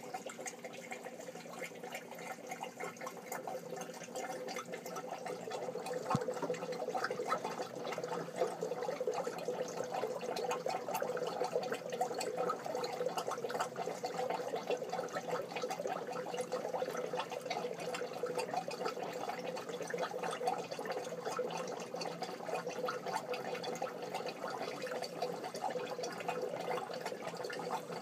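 Air-driven aquarium sponge filter bubbling: a steady gurgle of air bubbles rising through the water. It gets a little louder about six seconds in, when there is also one light tick.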